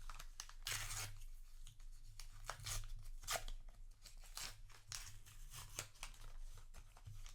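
Crinkling and tearing of a foil trading-card booster pack wrapper, in a string of irregular short rustles, with cards being handled.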